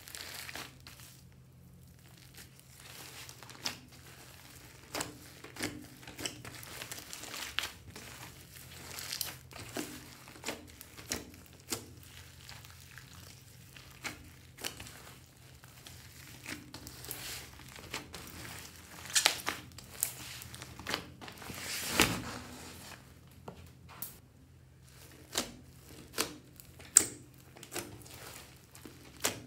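Hands kneading, squeezing and pulling apart a large mass of foamy slime, giving irregular crackling pops and short squelches. A faint steady hum runs underneath.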